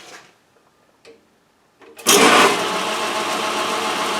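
Metal lathe parting off a steel shaft, the cut-off tool chattering. The chatter is caused by too much chuck overhang. It starts abruptly about two seconds in, loudest at first, then a steady harsh noise with a ringing tone through it.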